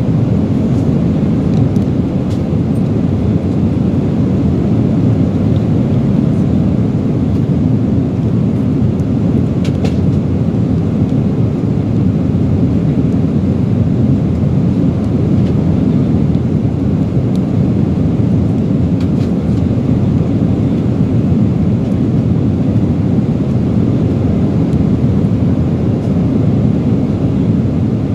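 Steady low roar of an airliner cabin in flight, unchanging throughout, with a few faint clicks about ten seconds in and again near twenty seconds.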